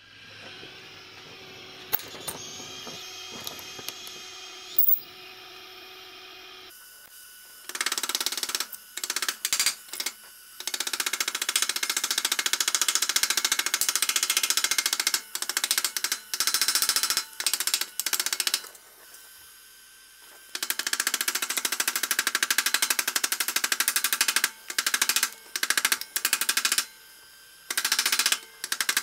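Rapid metal-on-metal hammering on the red-hot eye of an iron wagon box rod held in a vise, in long fast-rattling bursts with short pauses, over the hiss of an oxy-acetylene torch flame. The first several seconds hold only the steady torch hiss, before the hammering starts.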